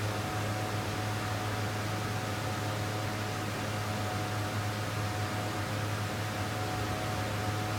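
Steady low machine hum with an even hiss and a few faint steady tones above it, unchanging throughout: running machinery such as a fan or motor.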